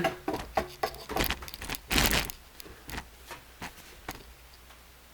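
Handling noises: a run of sharp clicks and light knocks, with a louder rustling scrape about two seconds in, then a few fainter clicks.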